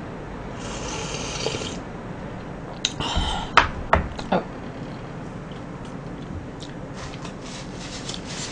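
A slurp of about a second as melted bingsu (Korean shaved ice) is sipped from a cup, then a few sharp mouth clicks and smacks of eating from a wooden spoon.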